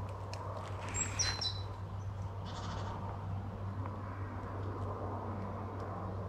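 A small bird calling: a few short, high whistled notes stepping down in pitch about a second in, followed by a fainter rasp.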